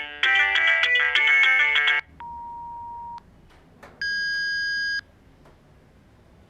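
A UTStarcom GSM 708 mobile phone's speaker plays a polyphonic ringtone melody that cuts off about two seconds in. It is followed by two separate one-second electronic beeps, the first a single steady tone and the second higher and made of several tones, the phone's battery alert sounds.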